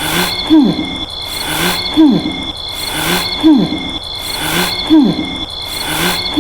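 Cartoon snoring sound effect on a loop: a snore repeating about every one and a half seconds, each ending in a loud falling hoot-like tone, over a steady high whine.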